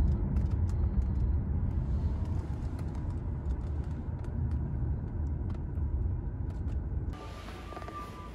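Steady low road rumble inside a moving car's cabin at highway speed, with tyre and engine noise. About seven seconds in it gives way to a quieter background.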